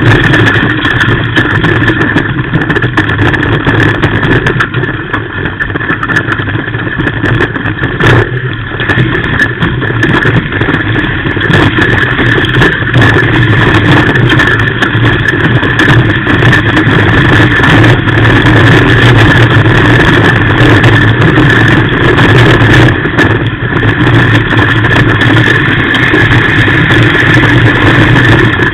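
Off-road race car's engine running hard under load, heard loudly from inside the cockpit, with many short clicks and rattles over the rough dirt track.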